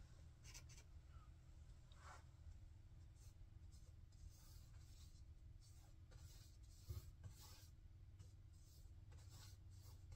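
Faint swishing of a paintbrush stroking acrylic paint onto a stretched canvas: a run of short, soft brush strokes, coming faster in the second half, with one light knock about seven seconds in and a low steady hum beneath.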